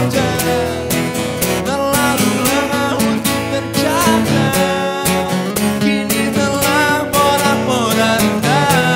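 Two acoustic guitars strummed and picked together while a man sings a rock song.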